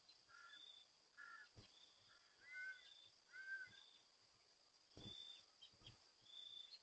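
Faint dawn insect and bird sounds: insects keep up a steady high hum with short high chirps about once a second. A bird gives four short two-tone calls in the first half.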